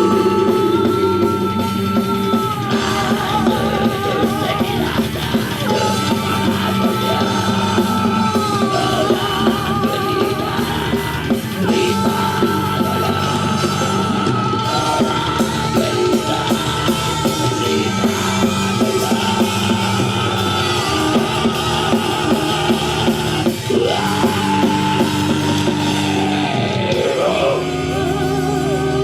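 Heavy metal band playing: electric guitars and drum kit, with long held melodic notes that waver in vibrato over a steady bass.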